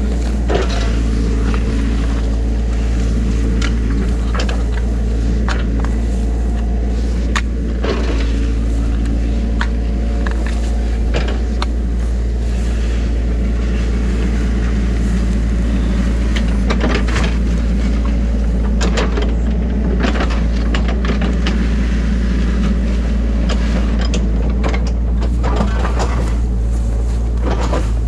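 Excavator's diesel engine running steadily with a constant low hum, with irregular rustling and clicks from walking through tall grass.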